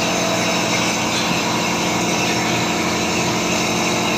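A steady machine hum with a fixed pitch, like a small motor running.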